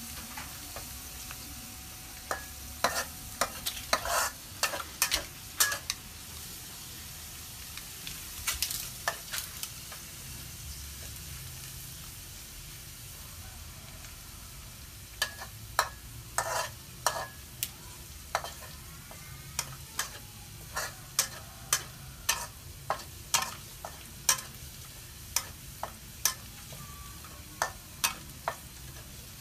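Shellfish stirred in a hot pan: irregular sharp clacks of the utensil against the pan and shells, in clusters with a lull in the middle, over a steady sizzle.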